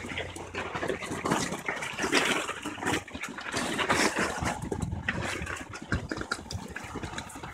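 Pebbles crunching and scraping under an overturned SUV as a tow rope pulls it back up onto its wheels, an irregular run of clicks and grinding.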